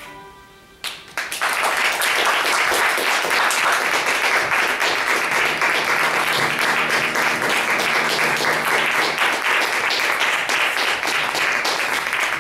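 Audience applauding loudly, breaking out about a second in as the last note of soft string music fades away, and beginning to thin out near the end.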